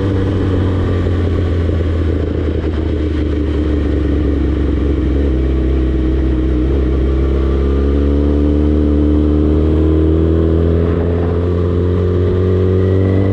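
Yamaha R6 sport bike's inline-four engine running under way, its pitch easing slightly at first and then climbing steadily through the second half as the revs build.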